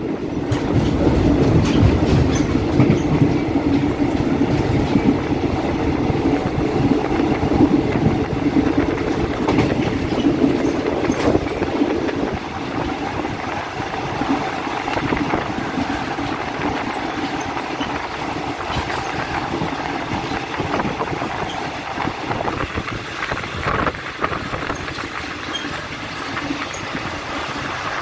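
Passenger train wheels clacking over the rail joints, with a steady rumble, heard from inside a carriage with open windows. The running noise drops a little about twelve seconds in and again near the end.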